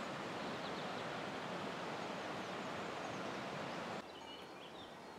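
Steady rushing outdoor noise with no clear source in view, with a faint chirp or two. It cuts off about four seconds in to a quieter background with short bird chirps.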